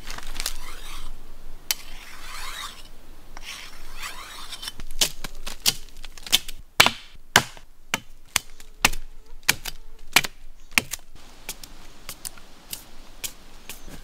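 Machete cutting tapping channels into the bark of a chicle tree (Manilkara) to bleed its latex: scratchy scraping in the first few seconds, then a run of sharp, irregular strikes on the bark from about five to eleven seconds in, tapering to light clicks.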